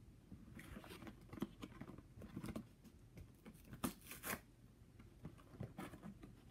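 The plastic blister and cardboard packaging of a Pokémon card pin collection box being torn and pried open by hand: scattered crinkles, cracks and tearing, with the sharpest snaps about four seconds in.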